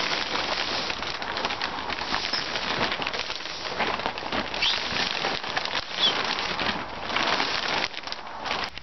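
Polythene polytunnel sheet crackling and rustling as it is pulled and dragged over the metal hoops. A couple of faint bird chirps come through past the middle.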